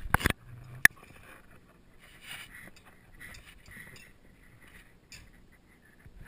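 Handling noise from a forearm-mounted GoPro camera housing: a few sharp knocks and clicks in the first second, then soft rustling and scraping as the arm, strap and fabric move against it.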